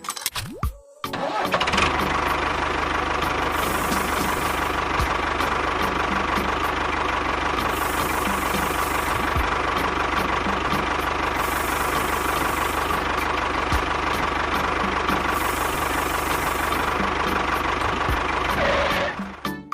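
A motor running steadily, with a constant low hum and a dense rattling noise. It starts about a second in and cuts off abruptly near the end.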